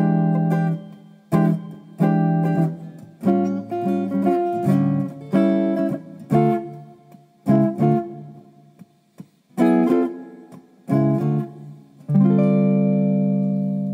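Guitar music: plucked notes and strummed chords, ending on a final chord about twelve seconds in that is left to ring and slowly die away.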